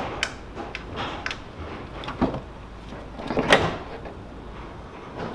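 Plastic front grille of a Mercedes-Benz W211 being pulled free of the hood by hand: a run of plastic clicks and knocks, with a longer, louder scrape about three and a half seconds in.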